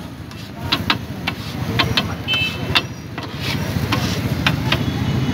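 Metal scraper clanking and scraping on a flat griddle as chopped chicken is gathered and turned, with sharp metallic clinks at an uneven pace of one or two a second. A steady low rumble runs underneath.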